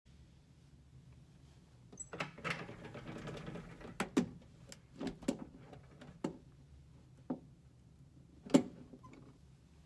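Pull-down blind over a sleeping capsule's opening being drawn and fastened by hand: a rustle, then a series of separate knocks and clicks, the loudest about eight and a half seconds in.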